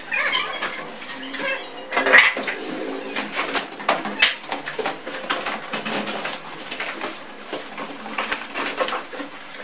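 Corrugated cardboard carton rustling, scraping and knocking as it is lifted off a front-load washing machine, with irregular clatter throughout.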